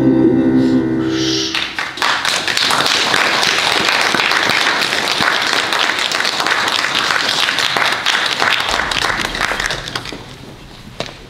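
A song's last held notes end about a second and a half in, and a crowd then applauds steadily for about eight seconds, the clapping thinning out and dying away near the end.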